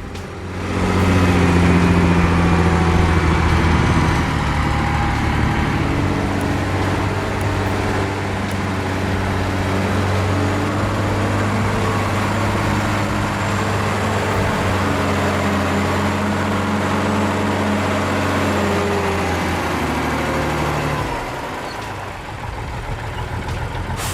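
Heavy logging truck's diesel engine running steadily, with a deep, even drone that eases off near the end.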